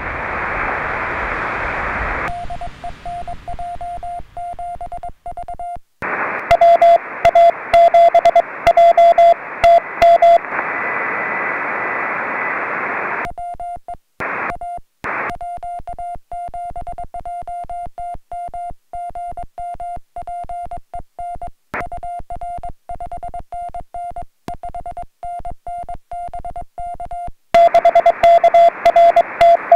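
Morse code (CW) from a Yaesu FT-817 portable HF transceiver: a single steady tone keyed in dots and dashes. Under it, receiver hiss cuts in and out, with a few much louder stretches.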